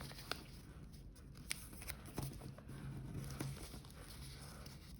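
Origami paper being folded and creased by hand: a few faint, short crinkles and ticks as the paper is handled.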